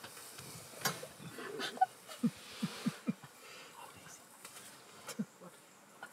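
Lion breathing heavily while feeding on a giraffe carcass: a quick series of short, falling breaths about two to three seconds in and another near the end, with a few sharp clicks.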